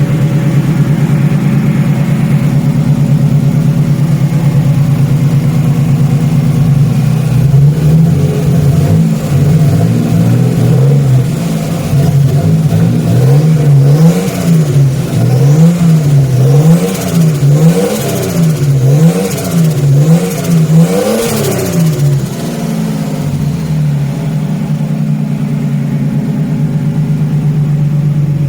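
Ford Falcon AU wagon engine running at a steady idle, then revved up and down about once a second for roughly a dozen blips before settling back to idle. It is recorded to show odd noises the owner hears from the car.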